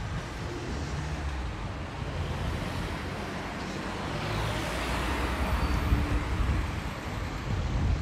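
A car passing on the street: its tyre and engine noise swells about halfway through and fades again, over a low, steady traffic rumble.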